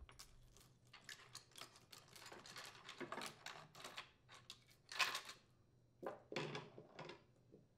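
Steel cutting chain of a Craftsman chainsaw being pulled off its guide bar, the loose links clinking and rattling in a string of faint, irregular clicks, loudest about five seconds in and again a little later.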